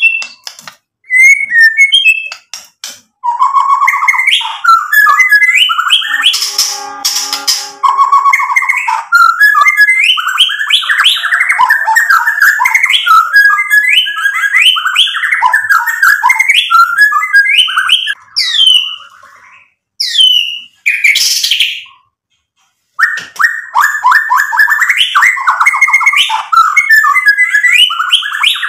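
Male white-rumped shama singing a fast, varied song of rapid trills and chattering phrases, with a harsher, rasping note about seven seconds in and two brief pauses around twenty and twenty-two seconds in.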